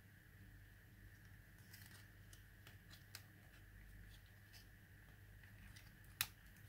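Near silence with faint clicks and taps of a plastic toy drone's shell and folding arms being handled, and one sharper plastic click near the end.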